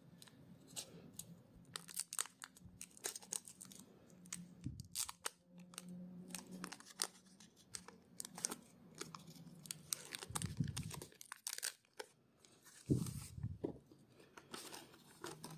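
Foil Pokémon TCG booster pack wrapper crinkling and tearing in the hands as it is opened and the cards are pulled out: a long run of sharp crackles, with a couple of short dull handling sounds late on.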